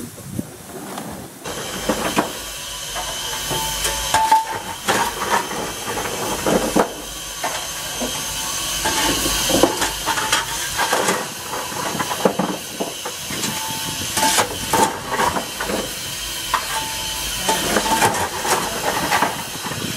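Steam hissing steadily on a small saddle-tank steam locomotive, getting louder about a second and a half in. Over it come repeated clunks and scrapes as lumps of coal are handled and fed into the open firebox.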